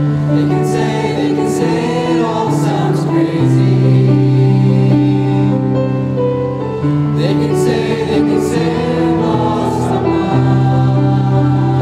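Small choir singing in harmony, holding long chords that change every second or two.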